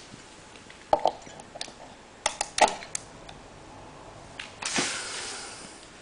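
Handling noises from a phone charger plug at a wall socket: a few sharp plastic clicks and knocks about a second in and again in a cluster around two and a half seconds, then a brief rustle near five seconds.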